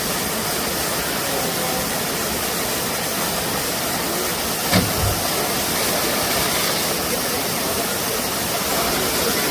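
Steady rushing of a waterfall, with one brief thump about halfway through.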